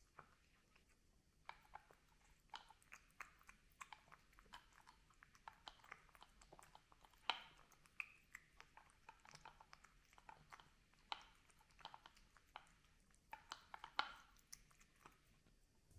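A cat eating from a bowl: faint, irregular chewing and crunching, many small sharp crunches, with two louder ones about seven and fourteen seconds in.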